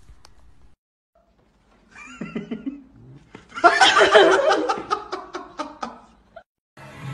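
A person bursts out laughing: a short voiced sound, then a loud run of laughter that breaks into quick short gasps and fades out. Music starts just before the end.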